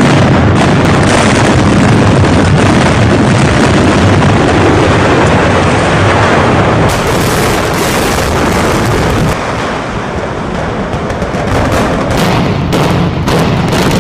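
Building demolition by explosive charges: a string of sharp blasts blending into a loud, continuous rumble, with more sharp cracks near the end.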